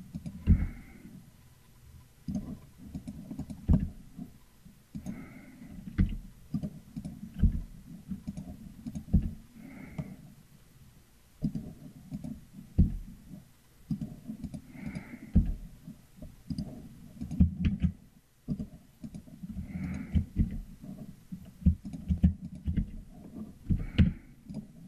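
Computer keyboard keys and mouse clicks: irregular sharp clicks mixed with low thumps, coming in clusters with short gaps.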